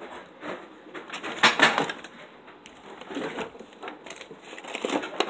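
Clicks and rattles of small objects being handled, with one loud clatter about a second and a half in.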